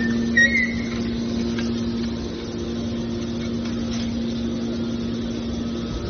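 Hydraulic scrap metal baler's power unit running with a steady hum while the ejection cylinder pushes a bale of metal turnings out of the press. A few brief high squeaks come in the first second.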